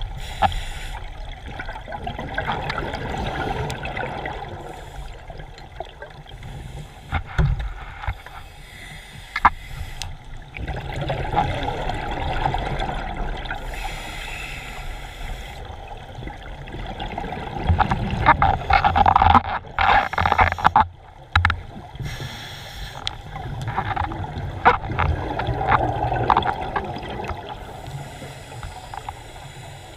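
Scuba diver breathing through a regulator underwater: exhaled bubbles rush and gurgle in swells about every six seconds, with a few sharp knocks in between.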